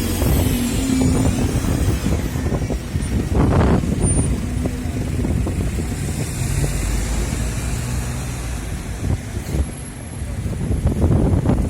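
London buses and traffic passing, with heavy wind buffeting the microphone. A wavering high-pitched whine sounds in the first second or so, and a short hiss about three and a half seconds in.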